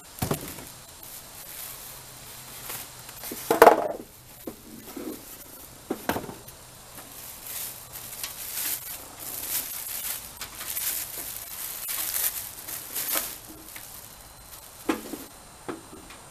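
Plastic bag crinkling and rustling as a propane heater is pulled from its foam packing and unwrapped, with a few handling knocks, the loudest about three and a half seconds in.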